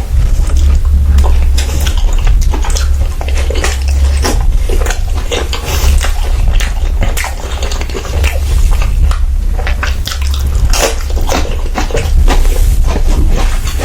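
Close-miked chewing and wet mouth sounds of someone eating, a dense run of irregular smacks and crackles over a steady low hum.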